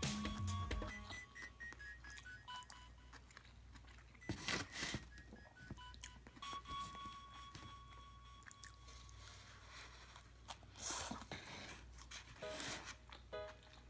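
Quiet background music with a plinking melody, over a person eating: a few crunchy bites and chewing, the loudest about four and a half seconds in and again about eleven seconds in.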